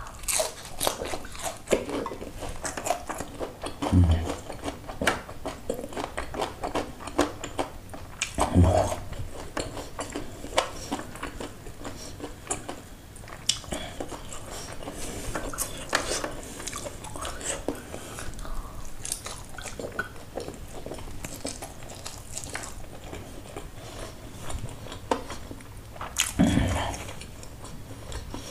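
Close-up chewing and biting of fried chicken and its crispy skin, eaten by hand, with many small crunching clicks. A few dull low thumps stand out about four, nine and twenty-six seconds in.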